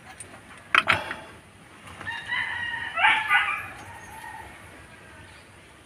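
A rooster crowing once, about two seconds in, for nearly two seconds, its last note dropping in pitch. Shortly before it comes a single sharp knock, as of a tool striking metal.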